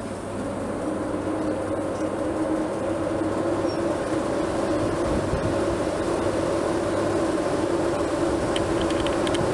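Class 90 electric locomotive starting to pull away slowly: a steady electric hum with two held tones, growing louder as it moves off.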